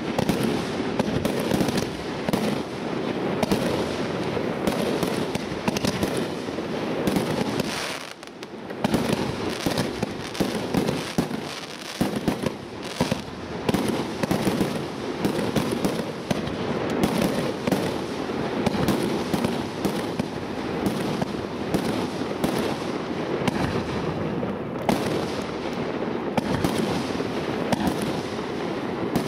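Fireworks display: a dense, continuous barrage of bursting aerial shells and crackling stars, with a brief lull about eight seconds in.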